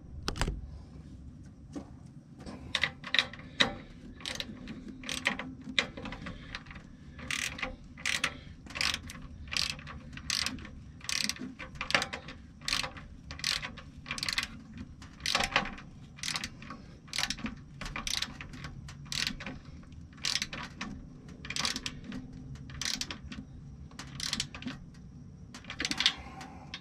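Hand ratchet wrench clicking in a steady run of short strokes, about two a second, as a mounting bolt is run down.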